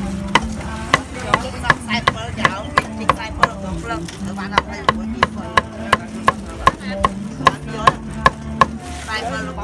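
A knife chopping roasted beef on a thick round chopping board: sharp, regular knocks about three a second, with a short pause about four seconds in.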